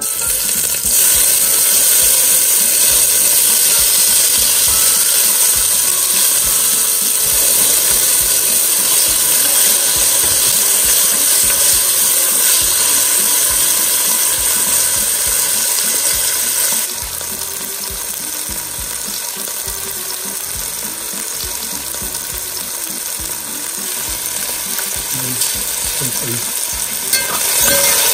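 Diced bell peppers sizzling in hot olive oil in an enamelled cast-iron pot while a wooden spoon stirs them. The sizzle is loud at first and becomes quieter about 17 seconds in.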